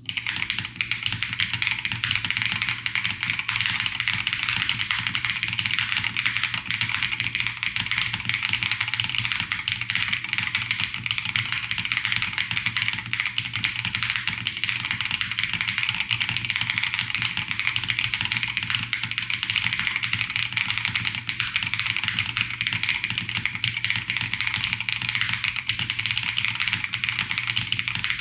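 Fast, continuous typing on a Keebmonkey 1800 v1 mechanical keyboard with Akko Cream Yellow Pro linear switches: a dense, unbroken clackity-clack of keystrokes.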